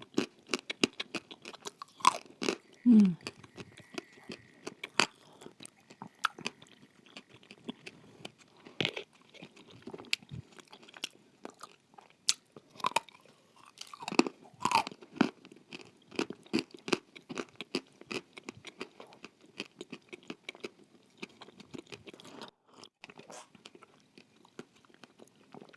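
A person biting and chewing crunchy food close to the microphone: a dense, irregular run of sharp crunches and crackles throughout.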